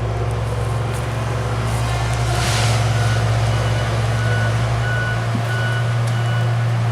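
Heavy equipment backup alarm beeping in steady repeats, heard from a distance from about three seconds in, over a steady low engine-like hum. A short hiss sounds about two and a half seconds in.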